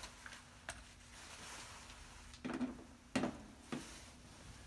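A few light clicks and knocks from loosened lug nuts being handled by hand at a steel wheel: one small click, then three knocks in the second half.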